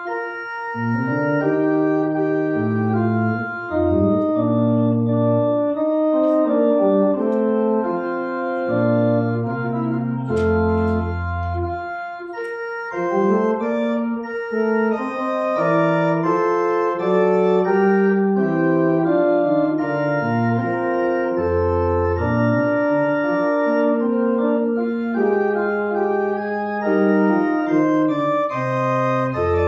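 Organ music: a slow piece played in held chords over a bass line that steps from note to note.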